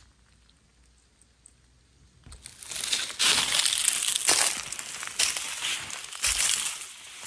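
Footsteps crunching and crinkling through dry leaf litter on a forest floor, starting a couple of seconds in and coming in uneven steps about once a second.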